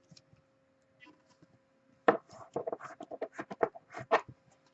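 Quick, irregular run of light clicking taps starting about two seconds in, after near silence.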